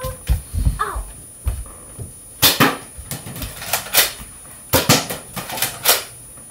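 A run of sharp clacks and knocks, about a dozen over four seconds, some in quick pairs, starting about two and a half seconds in.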